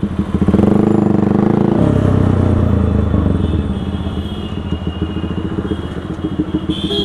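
Bajaj 200cc single-cylinder motorcycle engine running through a loud aftermarket full-system exhaust, pulling away under throttle. Just under two seconds in the engine note drops sharply and it runs on at lower revs with a pulsing burble.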